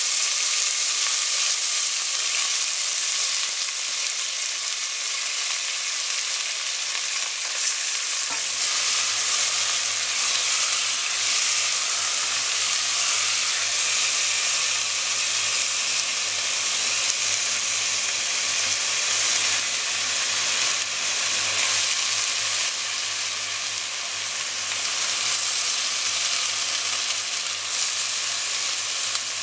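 Chunks of beef searing in hot oil and caramelised sugar in a caldero, a loud steady sizzle, with a wooden spoon stirring the meat. This is the first browning of Dominican carne guisada in caramel.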